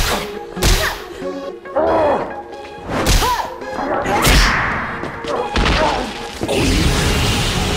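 Fight sound effects: several sharp punch impacts with whooshes, short shouts between the blows, over background music. A steady rushing noise sets in near the end.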